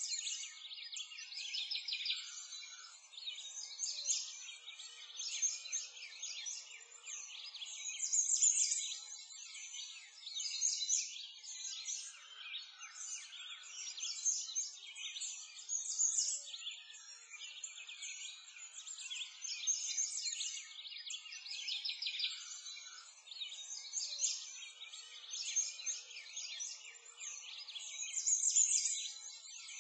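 Dense, continuous chirping and twittering of small birds, a birdsong background with nothing low underneath.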